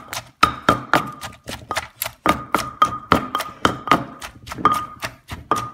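Wooden pestle pounding chilies and vegetables in a mortar for a pounded salad: a steady run of knocks, about three a second, each strike followed by a short ringing tone from the mortar.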